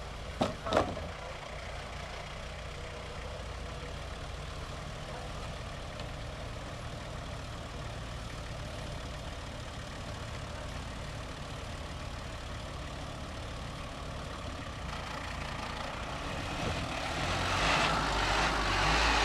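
Minivan engine running low and steady as the van creeps onto a wooden plank ramp, getting louder near the end as it passes close by. Two sharp knocks come just under a second in.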